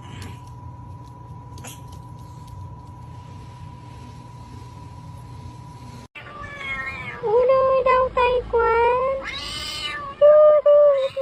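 A domestic cat meowing in a string of loud, drawn-out calls that start abruptly about six seconds in. Before the calls there is only a steady low hum with a faint high tone.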